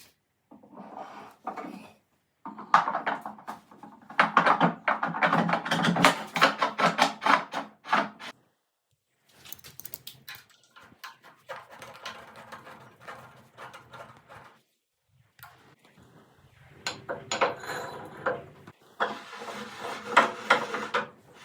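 A woodworking vice being worked: wooden and metal clicks, knocks and rubbing in several stretches that cut off abruptly.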